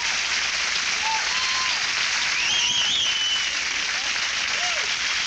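Studio audience applauding, with a high wavering whistle about two and a half seconds in.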